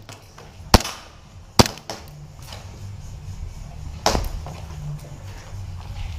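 Airsoft pistol shots: three sharp pops, two close together about a second in and a third a few seconds later, over a low rumble of wind or handling noise.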